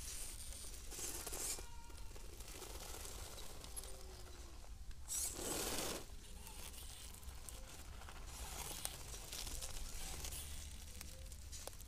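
1:10 RC rock crawler's knobby tyres scuffing over a rubberised slope and crunching dry leaves in scraping bursts, the loudest about five seconds in, with a faint whine from its brushless electric motor.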